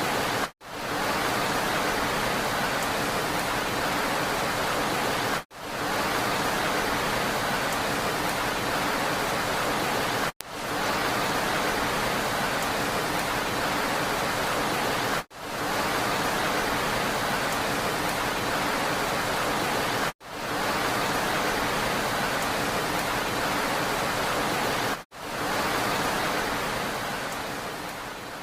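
Steady rain noise as a continuous even hiss, from a short recording looped with a brief dropout about every five seconds. It fades away near the end.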